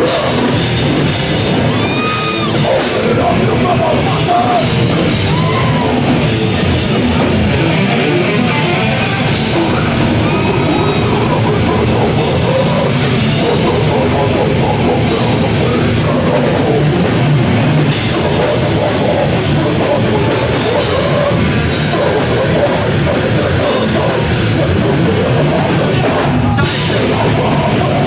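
Live heavy metal played by a full band, fast and loud, with distorted guitars, pounding drums and screamed vocals, as heard through a phone or camera mic in a club.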